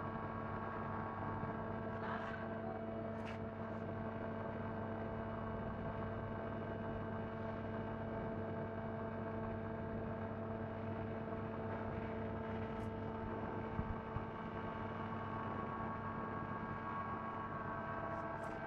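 Colchester CNC lathe powered up and running, giving a steady machine hum of several held tones, with a few light clicks and two short knocks about fourteen seconds in.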